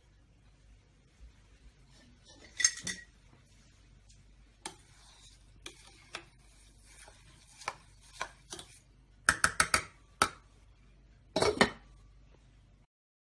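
A spatula stirring coarse-ground coffee and water in a stainless steel pot, giving scattered scrapes and sharp knocks against the pot, with a louder run of knocks in the middle. Near the end a glass pot lid clatters as it is set onto the pot.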